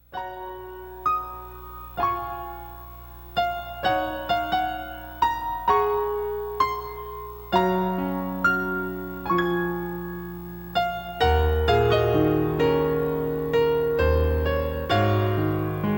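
Piano music starting from silence: a slow melody of struck notes ringing out, with lower bass notes joining about eleven seconds in.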